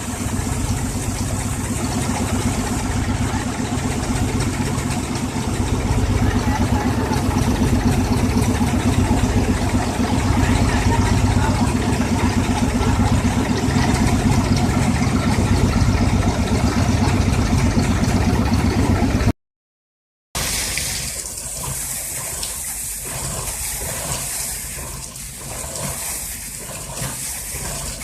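Engine of a borewell air-compressor rig running steadily. After a short break about two-thirds of the way through, a rushing, hissing gush of air and water is blown out of the borewell.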